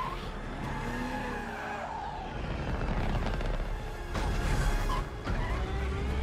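Film car-chase sound effects: vehicle engines running and tyres skidding, with a music score underneath and a louder rush about four seconds in.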